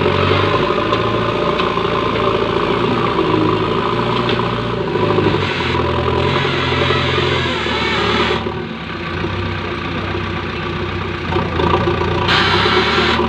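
JCB 3DX Eco backhoe loader's diesel engine running under load as the front loader bucket digs into deep compost, the machine bogged down in it. The sound gets duller and a little quieter for a few seconds past the middle, then picks up again near the end.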